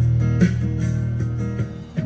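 Guitar music: strummed chords over a held low bass note.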